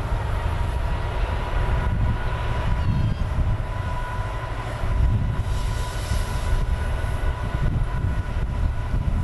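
Peppercorn A1 three-cylinder Pacific steam locomotive 60163 Tornado on the move, a steady low rumble with a thin steady tone over it. A spell of hissing comes about five and a half seconds in.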